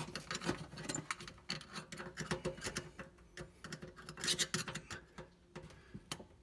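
Small screwdriver prying and scraping at an oven light socket and its wire terminals: irregular light metallic clicks and scratches.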